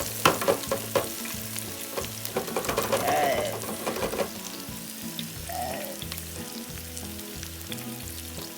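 Pork steaks breaded in ground Cheetos and flour frying in vegetable oil: a steady sizzle with sharp crackling pops, most frequent in the first second or so.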